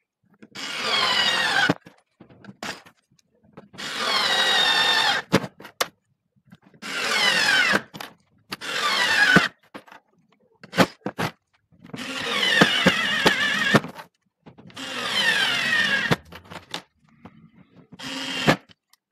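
Daewoo 3.6 V lithium cordless screwdriver driving screws into a semi-hard wood board, in about seven runs of one to two seconds each. The motor's whine falls in pitch during each run, with short clicks between the runs.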